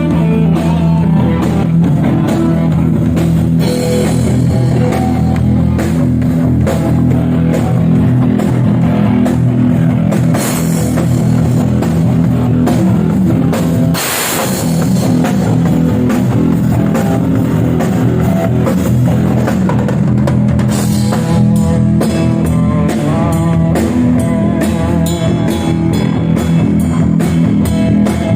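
Live rock band playing through the PA during a sound check: electric guitar and bass over a drum kit, with a crash about halfway through.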